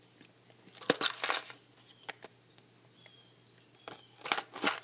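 Plastic figure packaging crinkling and crackling as scissor points are worked into it, in a short burst about a second in and another near the end.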